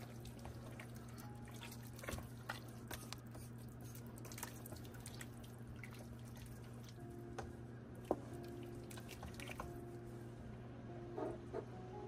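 A spoon stirring a large pot of soup: scattered clinks and scrapes against the pot with liquid sloshing, over a steady low hum.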